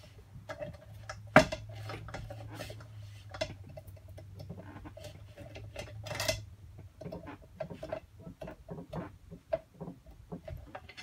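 Screwdrivers prying and scraping on the metal housing of an LG washer clutch assembly, making scattered metallic clicks and clinks, the loudest about a second and a half in and another near six seconds. A low steady hum runs underneath for the first six seconds.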